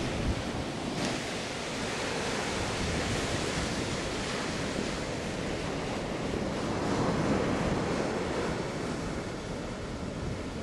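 Ocean surf breaking and washing up a beach as a steady rush that swells a little about two-thirds of the way through, with wind buffeting the microphone.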